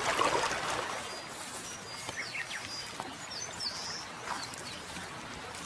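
Flowing river water for about the first second, then small birds chirping and whistling, several short high calls, over soft outdoor ambience.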